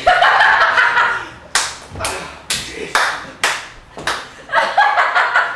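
About six sharp hand claps, roughly two a second, in the middle. A voice calls out loudly without clear words at the start and again near the end.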